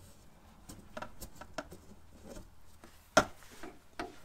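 Thin polished aluminum sheet panel being handled and pressed into place in the car body's nose opening: scattered light taps and clicks, with a sharper knock about three seconds in and another a second later.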